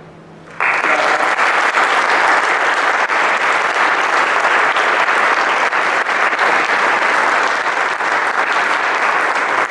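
Audience applauding. The applause starts suddenly about half a second in and keeps going at a steady level.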